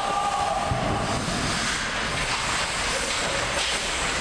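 Steady echoing noise of an ice hockey game in an indoor rink, with skates scraping the ice and a few faint stick or puck clicks.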